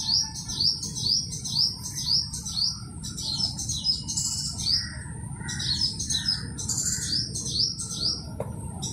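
Small birds chirping: a steady run of short, high, falling chirps, about three a second, with a few softer, lower notes around the middle.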